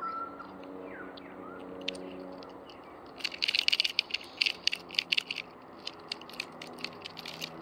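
Jointed wooden rat lure shaken in the hand, its body sections clacking together in a rapid, irregular run of sharp clicks from about three seconds in, thinning out near the end.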